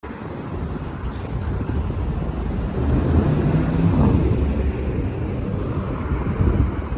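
City street traffic: a low, steady rumble of passing cars that swells to its loudest around three to four seconds in, then eases.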